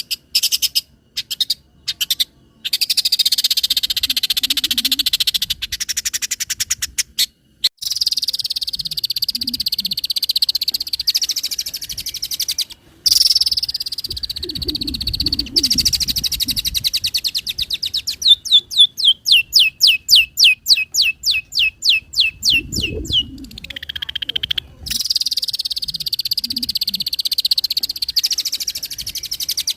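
Long-tailed shrike (cendet) singing a varied mimicking song of quick chirps, buzzy trills and rattling note series, with a run of rapid repeated notes, about four a second, later on.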